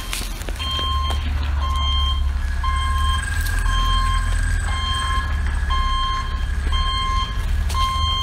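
Box delivery truck's reversing alarm beeping about once a second, the sign that the truck is backing up, over a low rumble.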